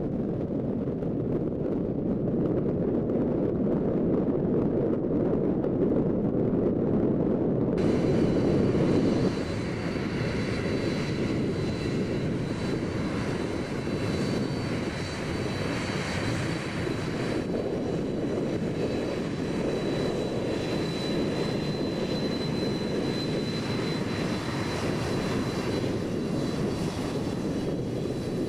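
Airliner engines running, a steady rumble with a thin high whine over it for much of the time. The sound changes abruptly about eight seconds in, as at an edit.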